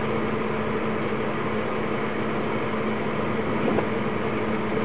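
A steady background hum with a constant low tone and a hiss beneath it, unchanging throughout.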